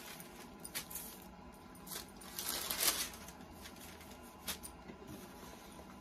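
Sheets of paper being handled and laid flat on a table: a few brief rustles and light taps, the longest rustle about two and a half seconds in.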